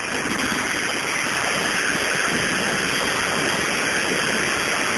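Steady rushing noise of an airplane's engine and wind in the cabin, heard over a telephone line.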